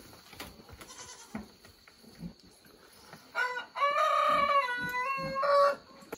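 A rooster crowing once, starting about three and a half seconds in: a short first note, then a long held call that drops in pitch partway and lifts again at the end.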